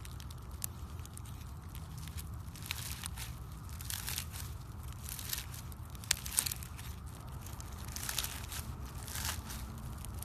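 Crunchy slime being squeezed and pressed by hand, crackling and popping irregularly, with a few sharp louder clicks about six seconds in.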